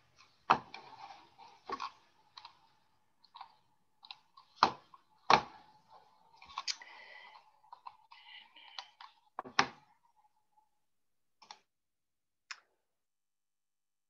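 Irregular clicks and knocks at a computer on a video call, like mouse clicks and desk taps. A few are sharp and loud, with fainter ticks between them, thinning out after about ten seconds.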